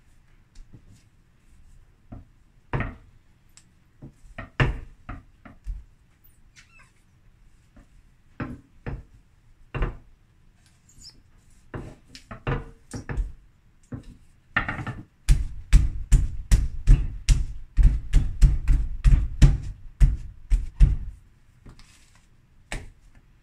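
Bread dough being rolled out with a rolling pin and worked by hand on a countertop: scattered knocks and thuds, then a quick run of loud thumps for about six seconds past the middle, as the dough is flattened to press out the large air bubbles.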